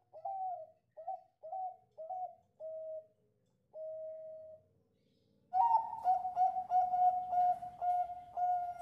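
Zebra dove (perkutut) cooing: a string of six short coos, the last one drawn out, then after a brief pause a louder, faster run of rolling coos.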